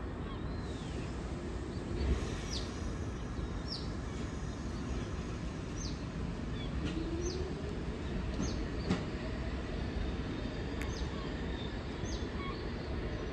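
Steady low rumble of a New York subway train standing at an open-air station, with a bird giving short, high, falling chirps every second or two and a couple of light knocks.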